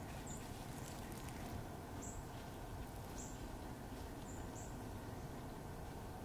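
A small bird's short, high, thin chirps, five of them at irregular intervals, over a steady low outdoor background noise.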